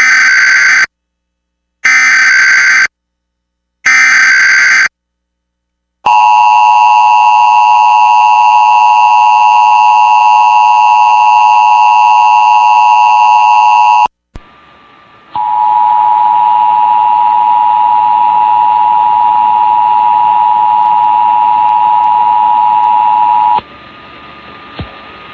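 Emergency Alert System test tones. Three one-second bursts of the warbling SAME digital header start the alert, followed by about eight seconds of the loud two-tone attention signal. After a brief drop, a second steady tone of about the same pitch, duller and less bright, runs for about eight seconds and then cuts off.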